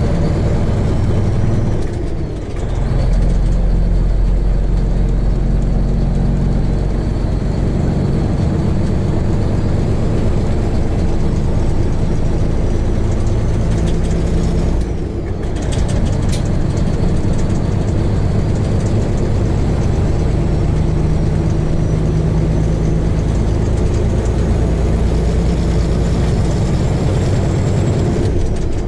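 Peterbilt semi truck's diesel engine running steadily on the road, heard from inside the cab with road noise. The engine sound briefly drops away twice, about two and fifteen seconds in.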